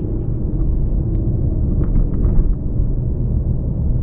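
Low, steady rumble of a car driving slowly, with engine and tyre noise heard from inside the cabin. A few light knocks come about two seconds in.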